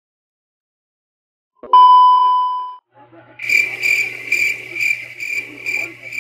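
A loud single beep lasting about a second, then cricket chirps repeating about twice a second over a low hum, typical of an edited-in 'awkward silence' crickets effect.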